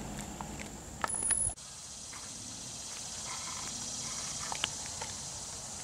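Outdoor ambience on a grassy lawn. A low wind-and-handling rumble carries a few light ticks and a short loud crackle about a second in. After an abrupt cut it gives way to a steady high hiss with a few faint chirps and ticks.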